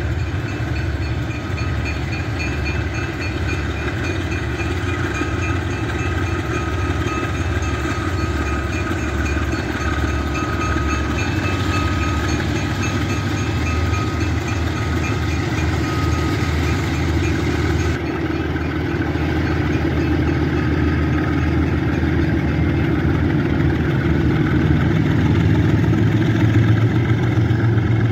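Two GE U20C diesel-electric locomotives pulling a loaded grain train slowly past under power, their diesel engines running with a steady whine over the first half. The engine sound grows louder over the last several seconds as the units come alongside.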